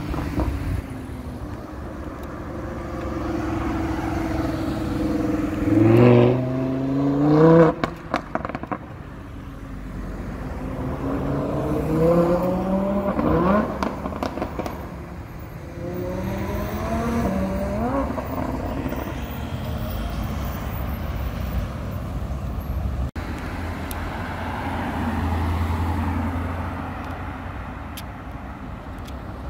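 Sports car engines accelerating hard past the microphone in city traffic, in several pulls whose pitch rises and drops back at each gear change. The loudest pull is about six seconds in, and a deep engine rumble comes near the end.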